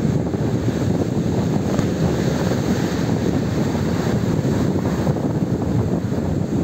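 Storm surf breaking and churning, a steady low rumbling noise, with strong wind buffeting the microphone.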